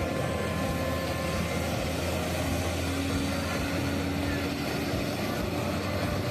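Street traffic with a diesel tractor-trailer tanker truck, an Isuzu Giga cab, passing close by, its engine running steadily under the general hum of cars and motorcycles.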